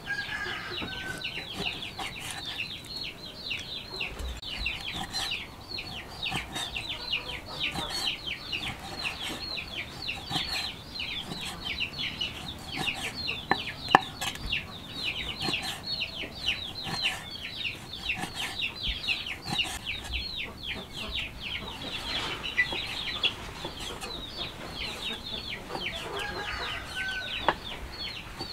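Cleaver chopping raw beef on a wooden cutting board: occasional sharp knocks, the loudest about halfway through. Behind them runs a constant chorus of high, falling peeps from many chicks.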